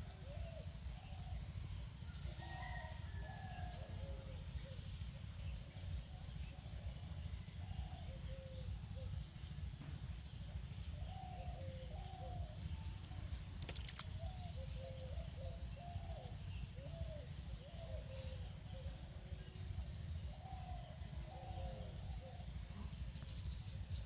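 Birds calling over and over in short chirping notes, over a steady low rumble, with one sharp click about halfway through.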